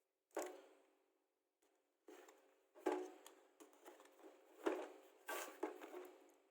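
Parcel packaging being handled and opened: rustling and crinkling with several sharp cracks, the loudest about half a second in, near three seconds and near five seconds.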